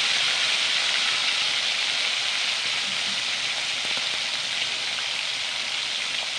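Slices of marinated pork belly sizzling steadily as they deep-fry in hot oil in a metal pan. The sizzle eases slightly over the few seconds.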